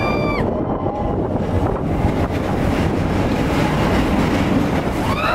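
Expedition Everest roller coaster train rumbling along its track with wind rushing past. A rider's high scream cuts off about half a second in, and another rises right at the end.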